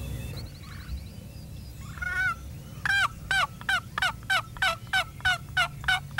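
Wooden turkey box call scraped by hand, giving a run of hen yelps to call in a spring gobbler. It begins with a single note about two seconds in, then about eleven evenly spaced yelps at roughly three a second.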